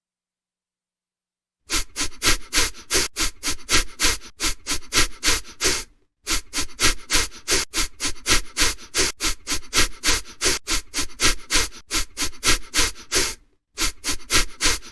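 A dog huffing with rapid, hard breaths, about four or five a second, starting after a short silence and pausing briefly twice.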